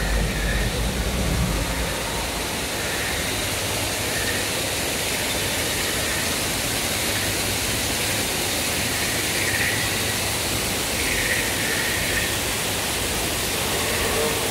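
Steady rushing noise, even from low to high pitch, with a little extra low rumble in the first second or so.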